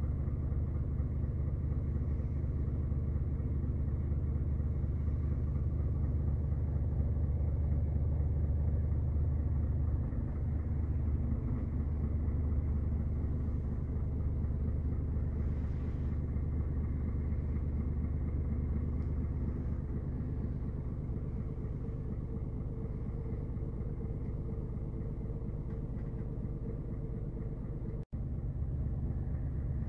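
Scania S 500's 13-litre inline-six diesel idling, a steady low rumble heard from inside the cab, with a brief break near the end.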